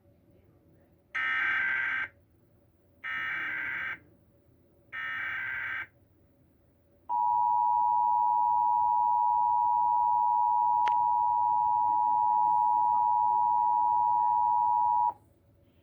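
Emergency Alert System tones for a Required Monthly Test: three bursts of the digital SAME header, each about a second long and a second apart, then the steady two-tone attention signal held for about eight seconds before it cuts off.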